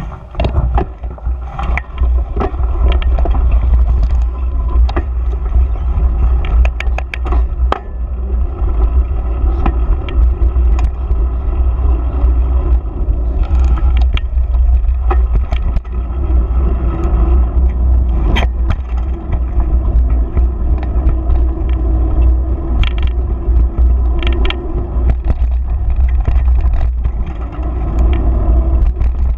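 A knobby tyre rolling over gravel, then grass and a concrete footpath, with a constant low rumble of vibration and wind buffeting. Frequent sharp clicks and knocks come from stones and bumps, thickest over the gravel in the first several seconds and scattered after.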